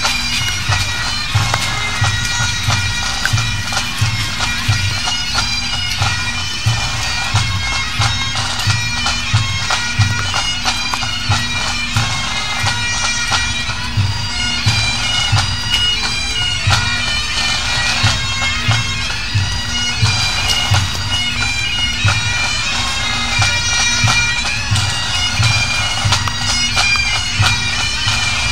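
Highland pipe band marching and playing: bagpipes with a steady drone under the chanter tune, over a regular drum beat.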